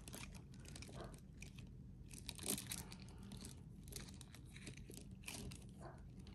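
Faint rustling and scattered light clicks as hands work at a tag fastened to a necklace, trying to pull it loose.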